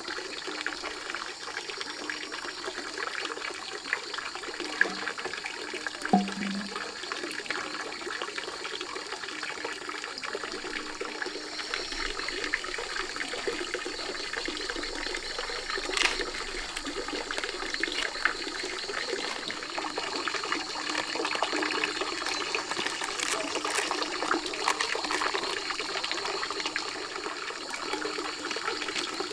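Running water, a steady splashing trickle, with a few short knocks about five and six seconds in and again around the middle.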